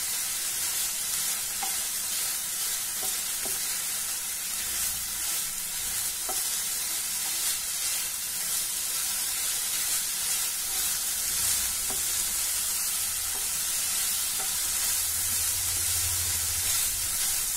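Chopped banana flower and grated coconut sizzling in a nonstick pan while a wooden spatula stirs them: a steady frying hiss with a few faint scrapes of the spatula.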